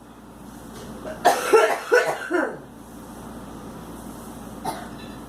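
A sick girl coughing: a quick run of several hard coughs about a second in, then one weaker cough near the end.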